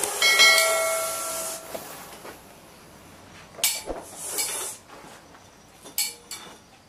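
Russell's viper hissing loudly, a long whistling hiss like a pressure-cooker whistle for about a second and a half, then a few shorter hisses; the defensive hiss of an agitated viper.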